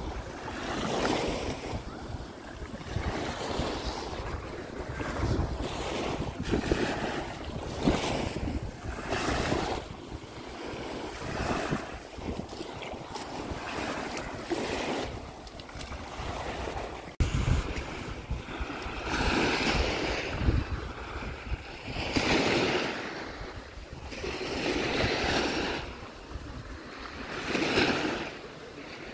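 Small Baltic Sea waves washing up on a sandy shore, each wash swelling and fading every couple of seconds. Wind rumbles on the microphone underneath.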